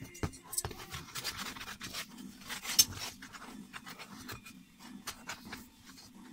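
A cloth rubbing along the chrome-plated hoop of a Yamaha Recording Custom 9000 snare drum as it is polished. The metal hoop gives small clicks and knocks as it is handled, with one sharp click a little before the middle.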